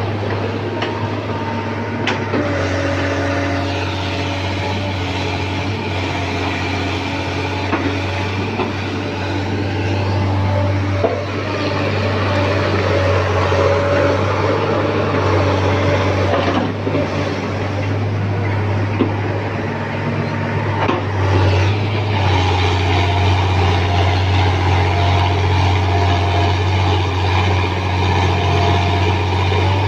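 Tracked excavator's diesel engine running under load, its tone rising and falling as the hydraulics swing, dig and dump. A few sharp knocks stand out as soil and rock drop into a dump truck's steel bed.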